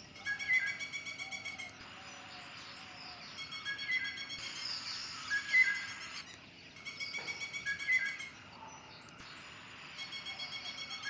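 Bird calls: a short call repeated every second or two.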